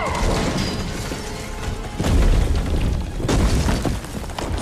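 Fight-scene sound effects: a run of heavy booms and crashing hits, the loudest about two seconds in, over music.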